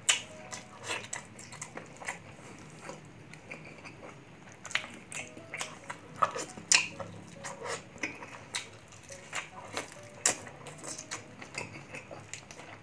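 Close-miked eating: a man biting and chewing grilled chicken, with irregular sharp mouth smacks and clicks.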